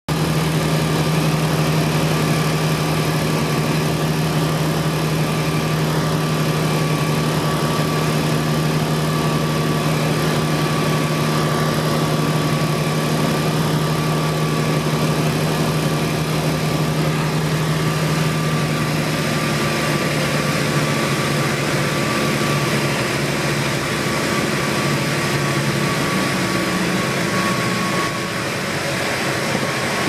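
Propeller aircraft engine droning steadily, heard from inside the cockpit, through approach and landing roll. About two-thirds of the way through the drone fades and turns rougher as power comes off, and it gets a little quieter near the end.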